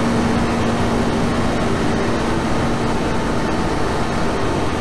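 Loud, steady, harsh noise drone with a low rumble, a synthetic sound-effect loop that stands for one character in a layered number-band track.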